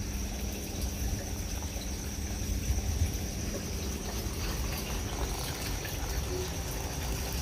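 Water poured and sloshing in a basin: limewater going over cut winter melon pieces to soak them before they are made into jam.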